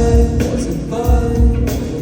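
A live pop song played loud through a concert sound system: a sung vocal line over a heavy bass beat that hits about twice a second.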